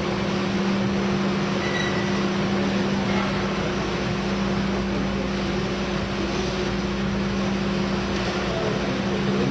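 ERSA Versaflow 4050 selective soldering machine running during its fluxing stage: a steady hum with two low tones over an even hiss of air.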